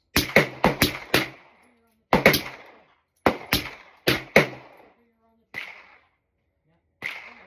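Suppressed 9mm Sig M18 pistol with an FN Rush 9Ti suppressor firing M17 +P ammo: about a dozen sharp cracks in quick strings, five rapid shots first, then pairs, then two fainter single shots. The +P loads let the suppressed pistol cycle fully, shot after shot.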